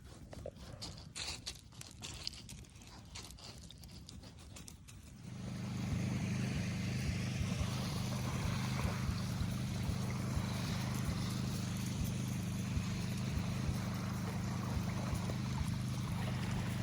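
Faint clicks and trickling water, then about five seconds in a boat engine comes in, running steadily at a constant speed with a low, even drone.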